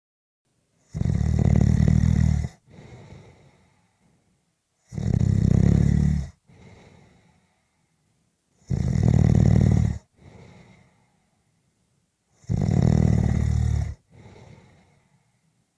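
A sleeping person snoring: four loud, rattling snores on the in-breath, about one every four seconds, each followed by a much quieter breath out that fades away.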